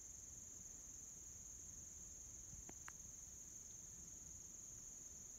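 A steady, high-pitched chorus of insects singing in the woods, with two faint clicks about halfway through.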